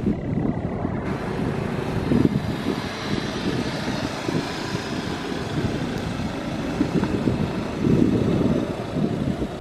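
Jet engines of a twin-engine airliner at takeoff thrust, a steady rumbling roar as the plane lifts off and climbs away, with louder swells about two seconds in and near the end.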